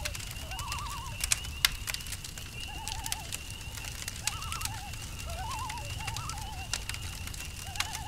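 Campfire crackling with scattered sharp pops over a low rumble, with a steady high cricket trill behind it. Short warbling animal calls at a few different pitches repeat about once a second.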